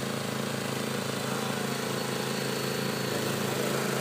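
An engine running steadily at idle: an even, unchanging hum.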